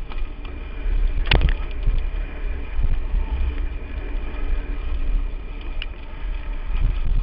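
Lapierre Spicy 516 mountain bike clattering and rattling as it is ridden fast down a rough dirt trail, with wind rumbling on the camera's microphone and a sharp knock just over a second in.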